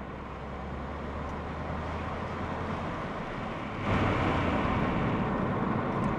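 Volvo C30 D4 diesel on the move, heard from inside the cabin: a steady low engine and road drone that grows noticeably louder and noisier about four seconds in.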